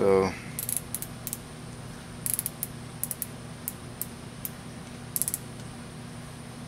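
Digital micrometer's ratchet thimble clicking in short groups as it is tightened onto a freshly turned steel shaft to take its diameter, over a steady low hum.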